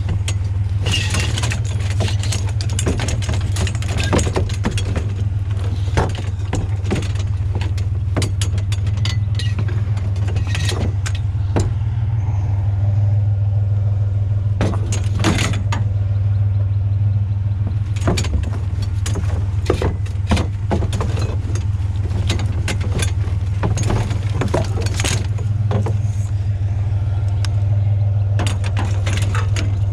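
Truck engine idling with a steady low hum, while metal canopy-frame tubing clanks and rattles in many short knocks as it is pulled out of a garbage can and handled.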